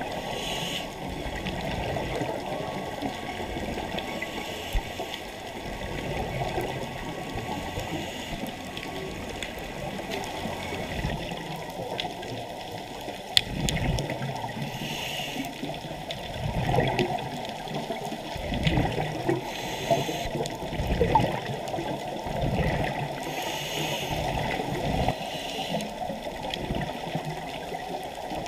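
Muffled underwater noise heard through a camera's waterproof housing: a scuba diver's regulator breathing, with a short hiss and a gurgling rush of exhaled bubbles every few seconds.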